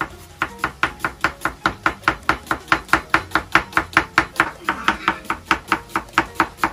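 Chef's knife slicing an onion on a plastic cutting board: a quick, even run of knife strikes on the board, about five a second, starting about half a second in.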